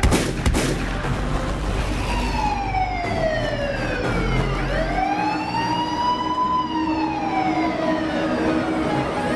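Wailing siren sound effect in the performance soundtrack, sweeping slowly down and up in pitch over a held low note, just after a loud crash. The deep bass under it stops about five seconds in.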